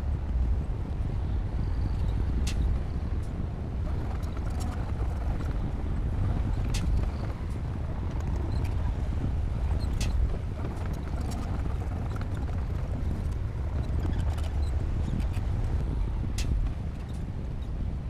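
D60P bulldozer's diesel engine running steadily under load, with occasional sharp metallic clanks, a few seconds apart, from the tracks or blade.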